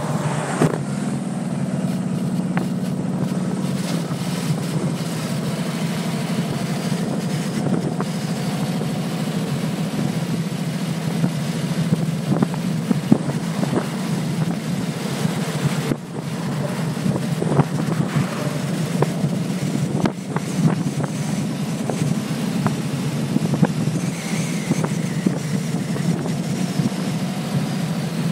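Harley-Davidson touring motorcycle's V-twin engine running steadily while cruising, with wind rushing over the helmet-mounted microphone; the engine note eases off briefly a couple of times, about halfway through and a few seconds later.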